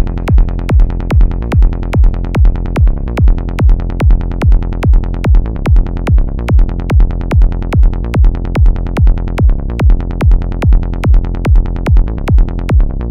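Electronic trance-style background music with a steady kick drum, about two beats a second, over a sustained bass.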